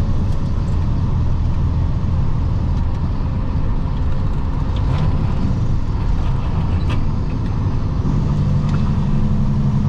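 Semi truck's diesel engine and road noise heard inside the cab while driving, a steady low drone that grows stronger about eight seconds in, with a couple of light clicks from the cab.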